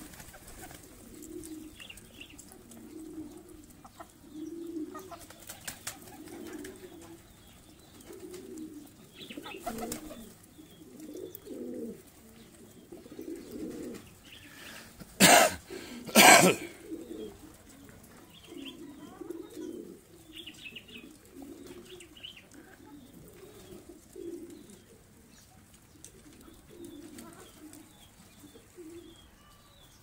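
A flock of domestic pigeons cooing again and again in low warbling calls. About halfway through, two short loud flurries of wing flapping a second apart.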